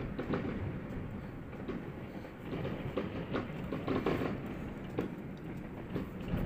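Many distant fireworks and firecrackers going off across a city at once: a constant crackling rattle of overlapping pops and bangs, with a few louder ones in the middle.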